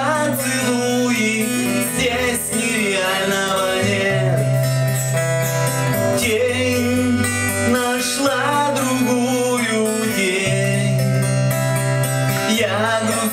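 Acoustic guitar strummed in steady chords, the bass note changing every couple of seconds, with a man's singing voice coming in over it at times.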